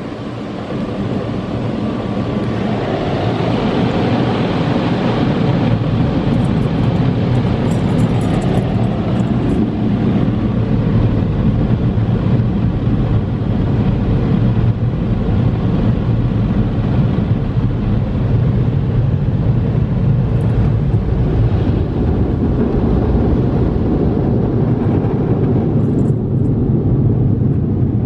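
High-velocity touchless automatic car wash machinery running, heard through the closed car's cabin: a loud, steady rush of jets or blowers. It builds over the first couple of seconds, then holds level.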